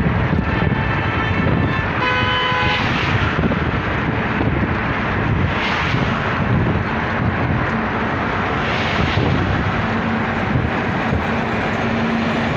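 Steady rushing tyre and wind noise of a vehicle driving at motorway speed. About two seconds in, a brief pitched tone sounds for about a second. Near the end a low steady drone joins in as a truck comes alongside.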